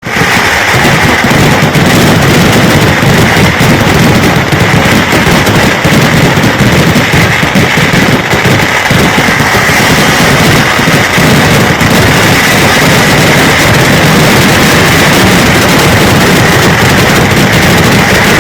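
Kerala temple-festival fireworks (vedikkettu): a dense, unbroken barrage of firecracker explosions, so rapid that they merge into one continuous loud crackle and rattle.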